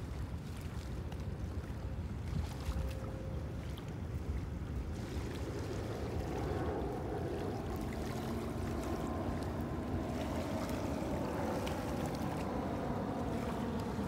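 Wind rumbling on the phone's microphone over the wash of ocean surf; the surf grows fuller and louder about a third of the way through.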